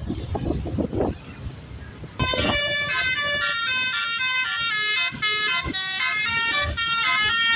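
A bus's Basuri telolet musical air horn starts about two seconds in and plays a quick tune of stepping notes, several a second, without a break.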